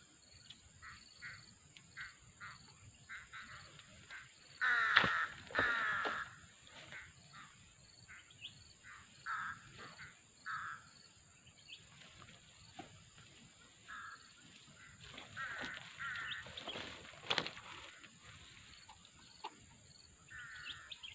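Crows cawing: two loud harsh caws about five seconds in, then scattered fainter caws, over a steady high insect drone.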